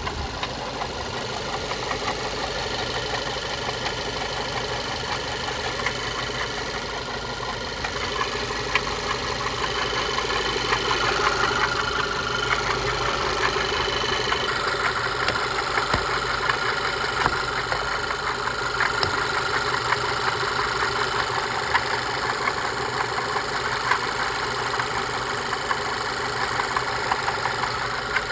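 Volkswagen-group 1.8 TSI (BZB) four-cylinder petrol engine running steadily at idle with a knock, the noise the recording was made to show.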